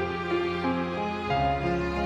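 Slow, sad background music: sustained chords over a low bass, with a melody moving above them. The chord changes a little past halfway.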